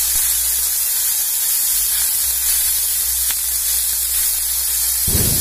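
Small fish sizzling in hot mustard oil on an iron tawa: a steady frying hiss, with a short low thump near the end.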